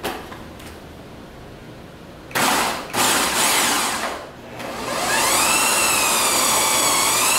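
Food processor chopping raw cauliflower florets into rice: two short pulses of the motor about two and a half seconds in, then a steady run from about five seconds in, its whine wavering slightly in pitch.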